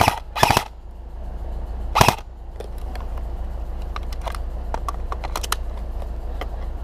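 Airsoft guns firing in a skirmish: a close burst just after the start and another about two seconds in, then scattered fainter shots further off.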